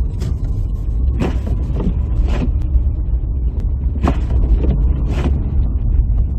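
Steady low rumble of a car's engine and tyres, heard from inside the cabin while driving, with a few short, sharper sounds over it.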